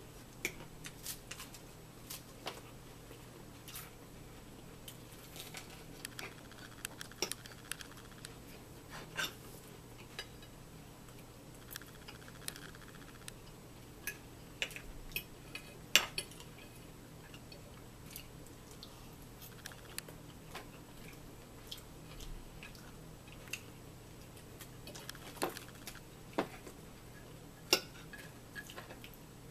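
Forks clinking and scraping against plates as two people eat, in irregular sharp clicks, the loudest about halfway through and near the end.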